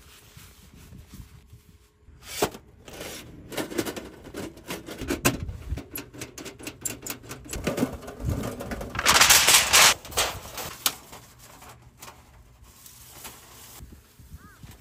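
Tent being pitched on a gravel pitch: tent fabric rustling, with irregular clicks and knocks from the tent gear, and a louder burst of rustling about nine seconds in.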